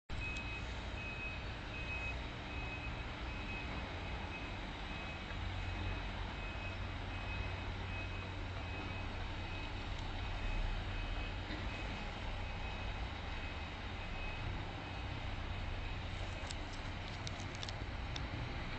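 Concrete pump truck's diesel engine running with its reversing alarm beeping at a steady, even pace; the beeping stops about sixteen seconds in. A few sharp clicks come near the end.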